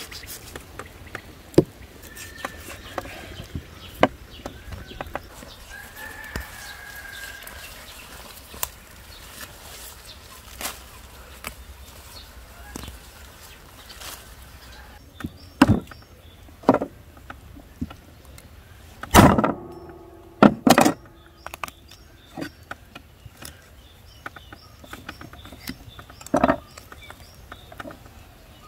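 Birds chirping outdoors with scattered light clicks, then heavy chops of a cleaver through a lamb joint onto a wooden chopping block: about six sharp strikes spread over some ten seconds, two of them in quick succession.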